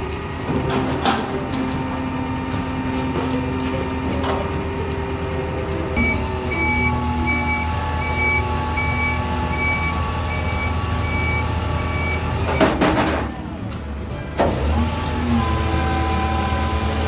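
A rotary-plate garbage truck's loading mechanism runs under engine-driven hydraulics: a steady engine drone with hydraulic whine whose pitch shifts a couple of times as the plate moves. Between about six and twelve seconds in, a high warning beep repeats a little over once a second. A brief loud rush of hiss comes near the end.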